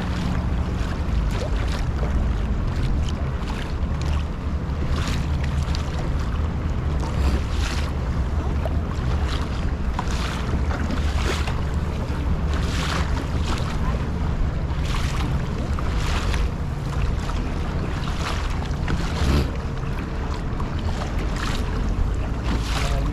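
Kayak paddle blades dipping and splashing in the sea, roughly once a second, over steady wind rumble on the microphone.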